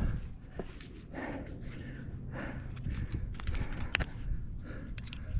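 A rock climber breathing audibly in short puffs while climbing, with scattered light clicks and scrapes from climbing gear and hands or shoes on rock, thickest a little past halfway.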